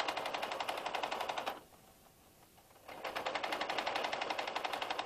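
Sewing machine stitching fabric with a rapid, regular ticking of the needle. It runs briefly, stops for about a second, then starts stitching again.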